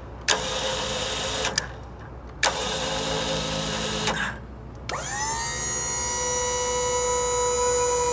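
Stellar EC3200 crane's electric-over-hydraulic pump motor, each run starting with a click. It runs twice in short bursts of a second or so, then starts again and spins up into a steady whine that keeps going. A low steady rumble sits underneath.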